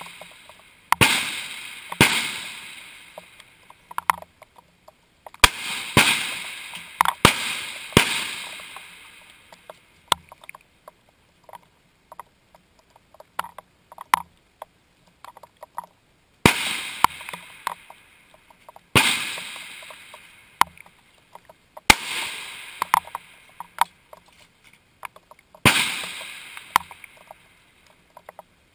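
Rifle shots on a firing line: about a dozen sharp cracks, each trailing off over a second or so. They come in irregular clusters, with a quieter stretch from about ten to sixteen seconds in.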